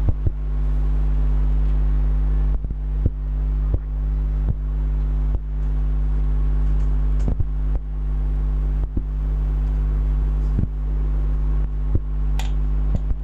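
Steady low hum with about a dozen scattered short knocks and rubs as a whiteboard is wiped clean with a duster.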